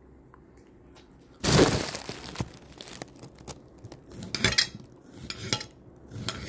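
Kitchen handling sounds of dishes and utensils: a loud, noisy clatter about a second and a half in that fades over about a second, then several lighter knocks and clinks.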